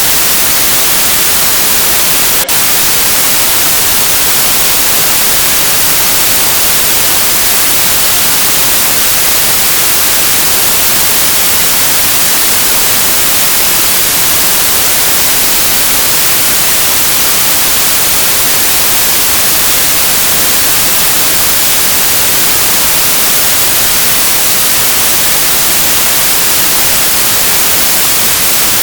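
Loud, steady static hiss with no other sound, and a single click about two and a half seconds in.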